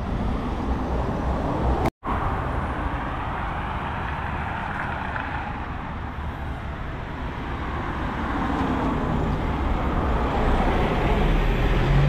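Road vehicle noise: a steady low engine rumble with road hiss, growing louder near the end, cut by a brief sudden dropout about two seconds in.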